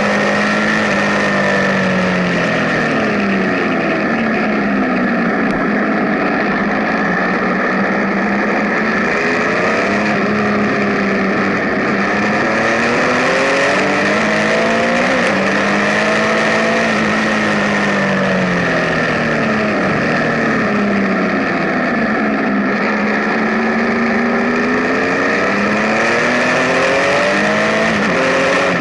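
Benelli Tornado Tre 1130 TNT motorcycle's inline three-cylinder engine under way, its note repeatedly falling and climbing as the throttle is rolled off and opened again.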